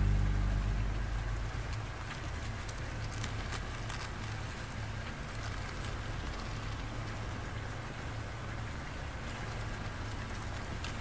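Steady rain falling, a dense even patter with a low rumble underneath. The tail of the slowed song fades out in the first second or so.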